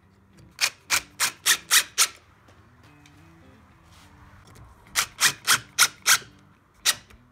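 DeWalt 18V XR brushless impact driver driving 40 mm external-grade screws through a brass tap wall plate into plugged masonry in short trigger bursts: six quick bursts about a second in, five more about five seconds in, and one near the end. Each screw is being run in a little at a time so the plate pulls in evenly.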